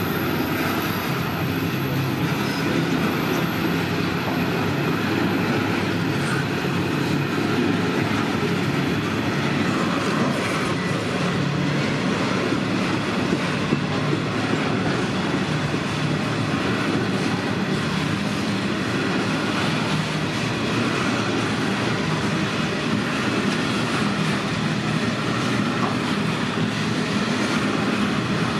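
Long string of coal hopper wagons rolling past close by: a steady rumble and clatter of the wagons' wheels on the track.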